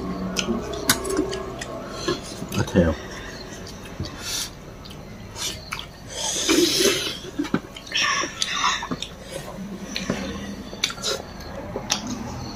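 Eating at a table: scattered sharp clinks of cutlery against dishes, with wet mouth sounds of chewing.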